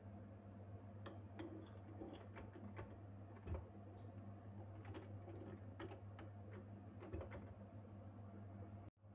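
Faint scattered light clicks and taps of metal as a wire balloon whisk is handled and fitted to a stand mixer, over a low steady hum. A single short high chirp comes about four seconds in.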